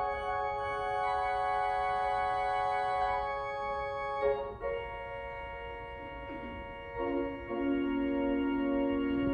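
Organ playing slow, sustained chords, changing chord about four seconds in, with lower notes coming in near seven seconds.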